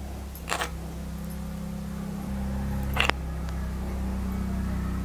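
A metal spoon dabbing masala paste onto steamed egg rounds on a clay plate, making two short scraping sounds, about half a second in and about three seconds in, over a steady low hum.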